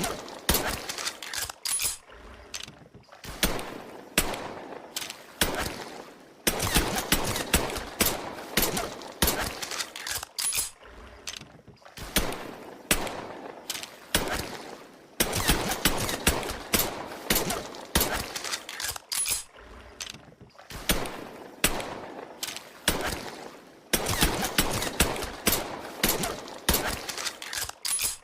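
Colt M1911 pistol sound effect: gunshots fired in quick strings, the same sequence of shots repeating about every four seconds.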